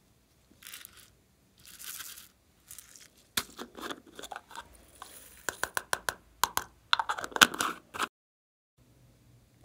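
Clear ridged plastic screw lid being twisted on a small red strawberry-shaped plastic container. Two short scraping rasps are followed by several seconds of rapid, irregular plastic clicking and crackling, which stops abruptly about eight seconds in.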